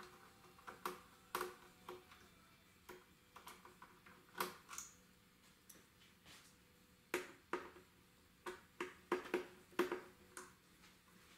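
Faint, irregular clicks and ticks of a screwdriver turning the screws that hold the cassette mechanism in a recorder's metal chassis, with a quicker run of sharper clicks from about seven seconds in.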